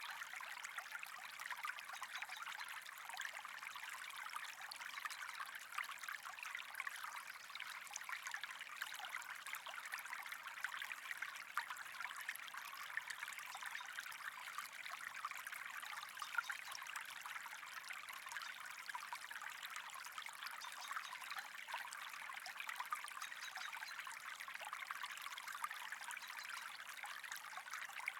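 Steady trickling of running water, an even stream of fine splashing with no change throughout.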